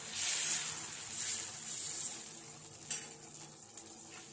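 Thin rice batter sizzling on a hot cast-iron dosa tava as it is spread with the back of a spoon: the sizzle rises and falls with the strokes for about two seconds, then settles to a fainter steady sizzle, with one light tap near three seconds in.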